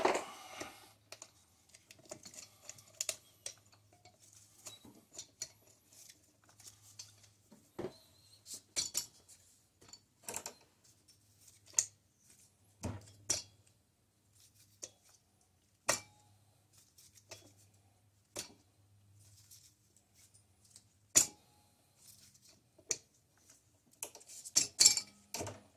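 Irregular light metallic clicks and taps as a Honda Rancher 350 ATV cylinder is worked by hand down the studs and over the piston and rings, knocking against the studs while it is straightened.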